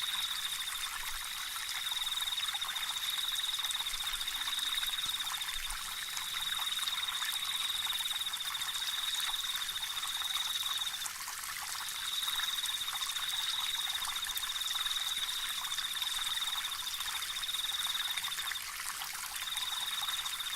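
Running water as a steady hiss, with an animal's high, fast-pulsed trill over it. The trill comes in phrases of one to several seconds, with short breaks between them.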